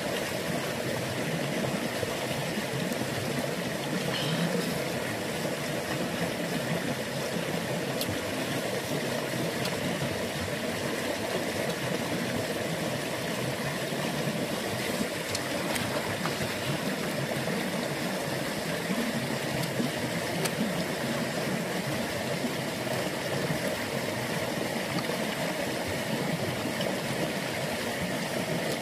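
Steady rush of a shallow, rocky stream flowing over stones.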